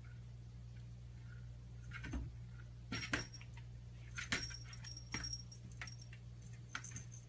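A small bell on a cat's collar jingling several times, with light taps of the cat's paws on a closet door as it paws at it standing on its hind legs.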